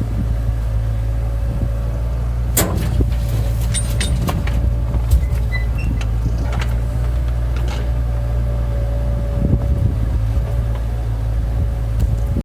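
Bobcat 331D mini excavator's diesel engine running steadily with a steady whine, while the machine works. Sharp knocks and clatter come through several times, the loudest about two and a half seconds in.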